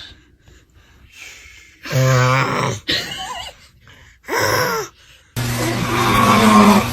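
A man snoring with three loud, groaning snores in a low voice, the first beginning about two seconds in. About five seconds in, music cuts in suddenly.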